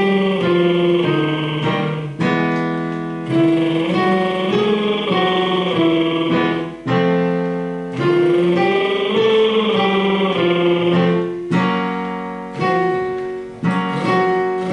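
Instrumental music, with new chords struck every second or two and notes held between them.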